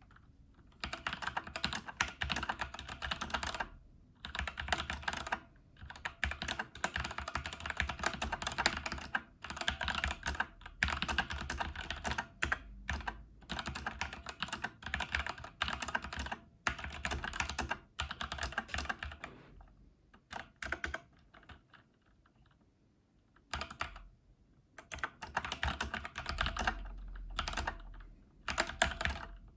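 Typing on an Xtrfy K4 RGB TKL mechanical keyboard: fast runs of key clicks and clatter, broken by short pauses and a lull of a few seconds about two-thirds of the way through.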